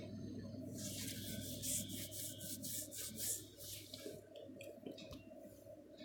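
Faint background noise under a steady low hum, with a rustling hiss lasting about three seconds from near the start.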